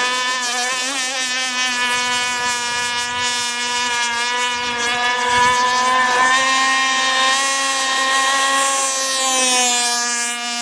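Electric RC speedboat running flat out on the water, its motor giving a steady, high-pitched whine that shifts slightly in pitch as the boat turns and passes.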